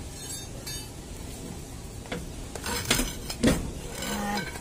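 Metal clinks and clanks of a long steel wrench bar working the wheel nuts of a truck wheel, with a few sharp strikes at about two, three and three and a half seconds in.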